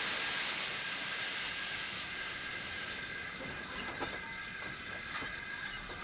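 Steam locomotive letting off steam: a strong hiss that dies away over about three seconds, followed by a few faint clicks.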